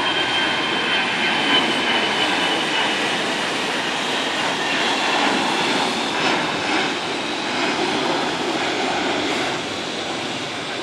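Airbus A320 jet engines at climb-out power just after takeoff: a steady, loud rushing noise with a high whine in the first few seconds that sinks slightly in pitch. It eases a little near the end.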